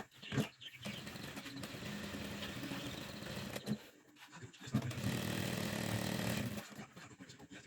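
Sewing machine running in two stretches of stitching, the first about three seconds long and the second about two, with a short stop and a few clicks between them.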